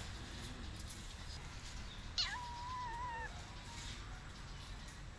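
A domestic cat gives one drawn-out meow about two seconds in, held for about a second with a slight waver. It is a yowl directed at another cat during a tense face-off.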